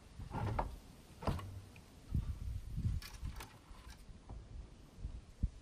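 Handling knocks of a CRT picture tube being pressed and shifted in its plastic TV cabinet: a series of separate low thumps with a few sharp clicks in the middle.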